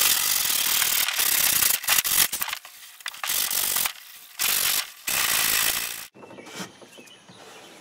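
Hand sanding with 120-grit sandpaper along the cut edge of a hatch opening in a plastic kayak deck, a rough scratching in strokes with short pauses, smoothing off the sharp edge. It stops about six seconds in.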